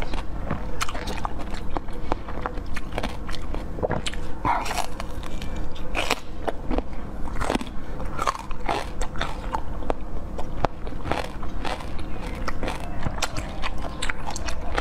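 Close-miked biting and chewing of a red, watermelon-shaped jelly slice: wet mouth sounds with many quick, crisp clicks throughout.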